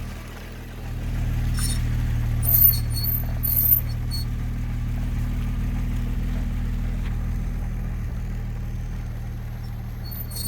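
Audi A6 C4 running steadily, with a few short high-pitched squeaks between about one and a half and four seconds in. This is the kind of squeal and grind the car makes only when turning, not when driving straight or braking.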